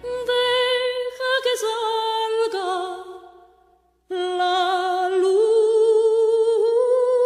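Unaccompanied wordless melody, a single voice humming long held notes with vibrato. The notes step down in pitch and fade out about four seconds in, and after a brief silence the line starts again low and rises.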